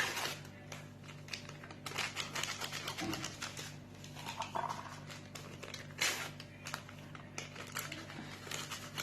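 Dry semolina being added to a mixing bowl and worked in: soft grainy rustling with scattered light clicks against the bowl. A steady low hum runs underneath.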